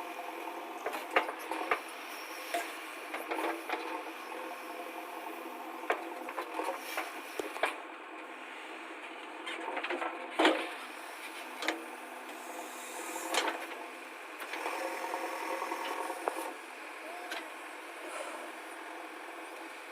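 Backhoe loader's engine running steadily, with irregular knocks and scraping clatter throughout.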